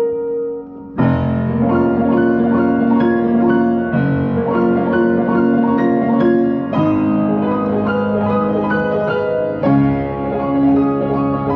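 Piano music. After a soft opening second, louder held chords enter under a line of single notes, and the harmony shifts roughly every three seconds.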